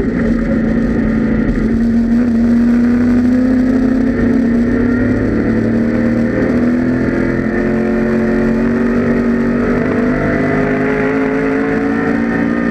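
The 5.0-litre V8 of a 1984 Ford Mustang GT Group A race car running hard under load, a loud, continuous note that climbs slowly in pitch with no break for a gearshift.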